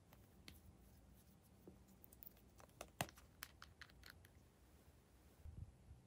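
A quick run of small sharp plastic clicks and taps, the loudest about three seconds in, from small plastic lip gloss compacts being handled and snapped open.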